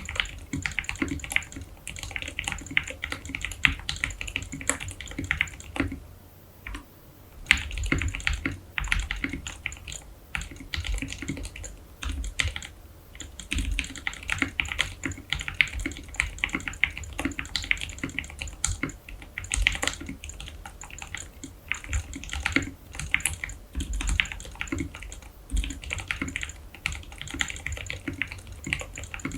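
Typing on a Leopold FC660M mechanical keyboard with OEM-profile keycaps: a fast, continuous run of keystroke clacks, with a short pause about six seconds in.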